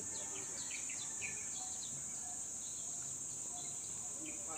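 Steady high-pitched drone of insects with birds chirping over it in short, repeated calls.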